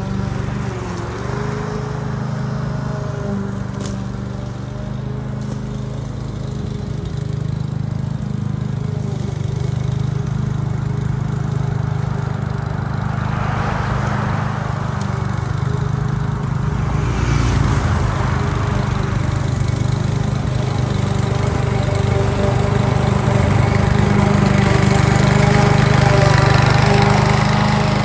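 Petrol walk-behind rotary lawn mower running steadily while cutting grass, growing louder as it comes back close near the end. A rushing noise swells and fades about halfway through.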